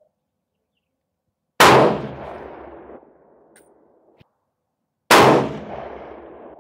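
Two rifle shots about three and a half seconds apart from a Howa 1500 bolt-action rifle in 6.5 Creedmoor, firing factory 129-grain soft-point loads; each sharp report dies away over about a second and a half. A faint click sounds between them.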